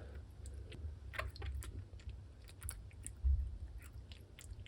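A cat chewing and biting on a chewy treat, with irregular small crunching and clicking sounds.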